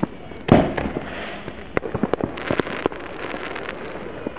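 Distant consumer fireworks going off across a town: one loud boom about half a second in that rumbles on for about a second, then a run of sharp pops and crackles a couple of seconds later.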